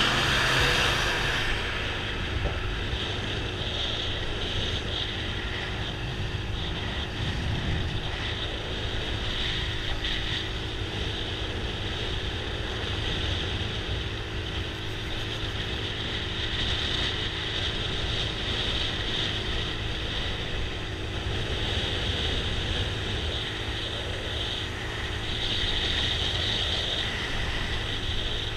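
Motor scooter cruising at steady speed, its engine drone mixed with road and wind noise. It is a little louder in the first second or so while passing close by a truck.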